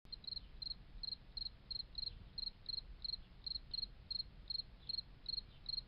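A cricket chirping steadily and faintly, about three short chirps a second, each a quick double or triple pulse.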